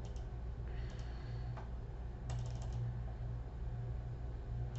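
Computer keyboard keystrokes: a few scattered taps, then a quick run of several about halfway through, over a steady low electrical hum.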